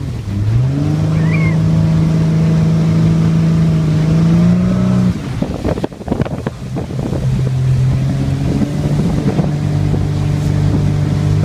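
Motorboat engine running under way, its steady hum rising in pitch about half a second in as it speeds up. Around five seconds in the hum gives way to a couple of seconds of wind noise, then it returns lower and climbs again near the end.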